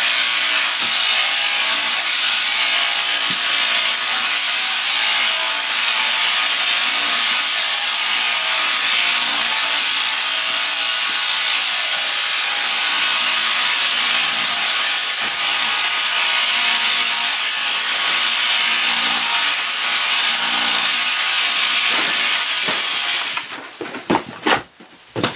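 Sheep-shearing machine handpiece running steadily as its cutter goes through a ram's fleece. It cuts off suddenly about 23 seconds in, followed by a few sharp knocks.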